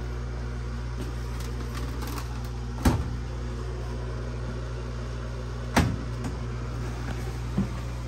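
Steady low hum with three sharp clacks, the loudest about three and six seconds in and a lighter one near the end: hands working a Samsung top-loading washer's control panel buttons and glass lid.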